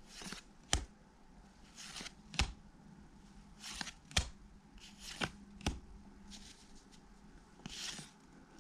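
A stack of 1991 Pacific football trading cards being flipped through by hand, one card at a time: soft sliding swishes of card stock, with a short sharp tap or snap every second or so as each card is moved to the back of the stack.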